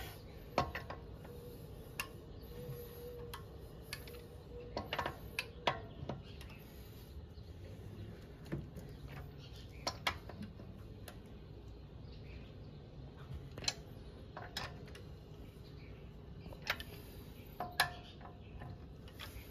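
Scattered sharp metallic clicks and clinks as a torque wrench socket is fitted onto the lug nuts of an alloy wheel and the nuts are tightened, over a low steady hum.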